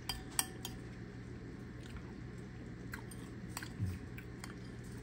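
Scattered clinks and taps of utensils against pots and dishes, a few sharp ones near the start, with a dull low thump a little before four seconds and a steady low hum underneath.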